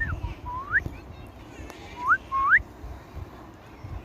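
Indian ringneck parrot whistling: short rising whistles, one near the start and a pair about two seconds in.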